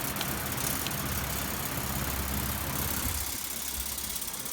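Emerson 79648-AU 16-inch table fan, not yet oiled, running on low: a steady motor hum under the rush of air from its blades, with a few light ticks in the first second. About three seconds in, the hum drops and the sound thins.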